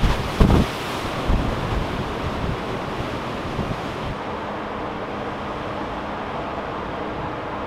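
Storm waves hitting a ferry's open car deck: about half a second in, a wave slams the side and spray blasts through the opening, over gusty wind buffeting the microphone. From about four seconds in, a quieter, steady rumble of wind and the ship.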